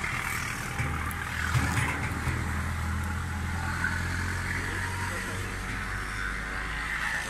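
A car engine running with a steady low hum over street traffic noise; the hum eases off about five seconds in.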